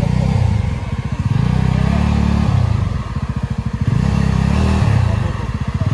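Yezdi Adventure motorcycle's single-cylinder engine pulling at low speed over rough ground. The throttle is opened and eased off in turns, dropping to a slow chug about a second in, again around three seconds in, and near the end.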